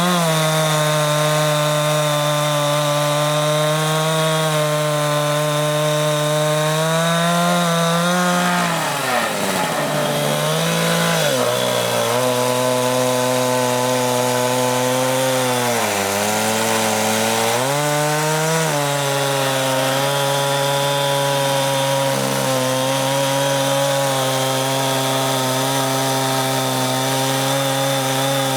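Two-stroke chainsaw running at full throttle in a homemade Alaskan-style chainsaw mill, ripping a heart pine log lengthwise into boards. The engine note drops twice, about nine and sixteen seconds in, as the chain bogs under the load of the cut, and climbs back each time.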